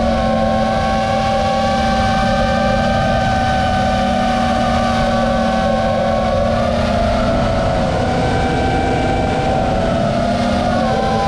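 FPV quadcopter's brushless motors and propellers whining steadily in flight, several tones at once, over a steady noisy rush. The motor pitch sags a little about eight seconds in and climbs back near the end.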